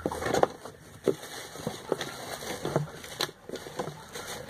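Irregular clicks and crinkles of plastic packaging and small cosmetic containers being handled while products are taken out of an order box.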